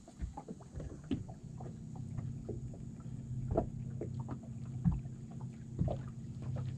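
Bass boat's bow-mounted electric trolling motor humming steadily, coming in about a second and a half in, with small irregular knocks and slaps of water against the hull.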